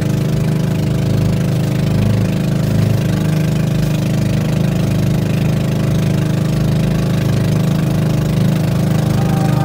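Motorboat engine running at a steady speed, an even, unchanging hum.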